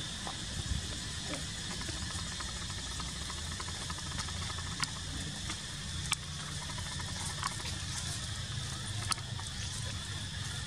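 Steady outdoor background noise, a low rumble under an even hiss, with a few scattered sharp clicks.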